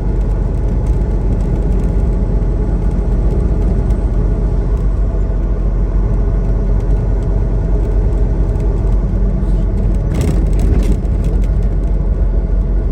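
Semi truck running down the highway: a steady low drone of engine and tyre noise, with a short burst of noise about ten seconds in.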